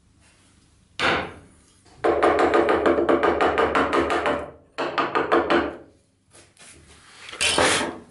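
Steel chisel being struck to chop a mortise in a wooden board: a single knock, then a fast run of knocks at about eight a second for over two seconds, a shorter run, and a longer scrape near the end.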